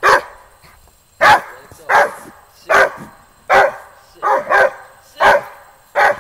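A dog barking again and again, about nine sharp barks roughly one every three-quarters of a second, with a quick double bark about four and a half seconds in. It is play barking while the dog waits for a held-up ball to be thrown.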